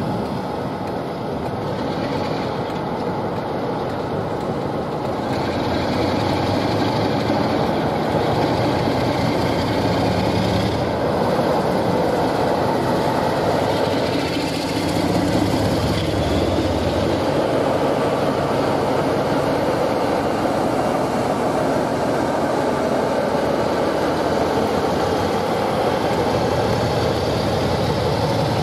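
Diesel-hauled train running past: a steady rumble of locomotive and wagons on the rails, with the engine note strongest around the middle.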